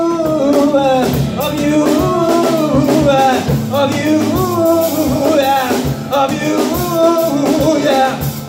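A rock band playing live with drums, electric guitar, electric bass and keyboard: a gliding melodic line over steady drum hits.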